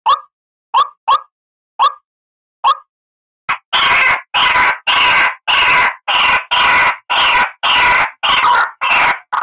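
White-breasted waterhen calling: a few short, sharp single notes spaced apart, then from about three and a half seconds in a loud, steady run of harsh 'ruak' calls, about two to three a second.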